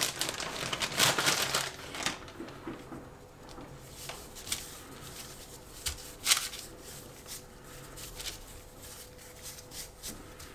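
Crinkly rustling of a flour bag for the first couple of seconds, then quieter handling with a few light taps and clicks as flour is dusted over bread dough on a baking tray.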